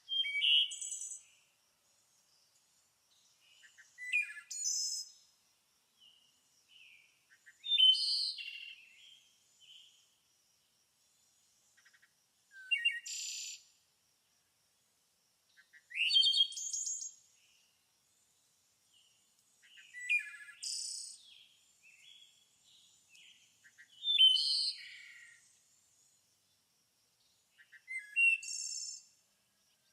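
A bird singing short, high chirping phrases, about one every four seconds, eight in all, with near silence between them.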